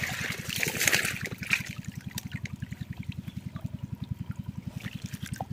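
Water splashing and trickling as the trap and catch are handled, fading after about a second and a half. Under it is a steady low putter with an even rapid beat, most likely a small boat engine left idling.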